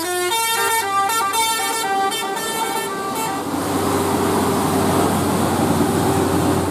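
Bus basuri telolet horn playing a quick melody of short high tones stepping up and down. About three seconds in the tune gives way to a steady rushing noise.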